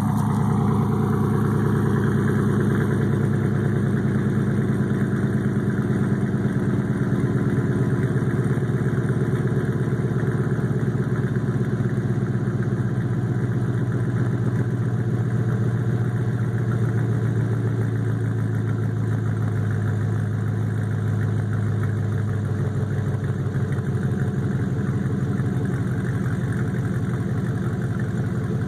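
2015 Chevy Silverado's 5.3L EcoTec3 V8 idling steadily through Kooks long-tube headers and a Magnaflow 14419 muffler, heard right at the 4-inch exhaust tip.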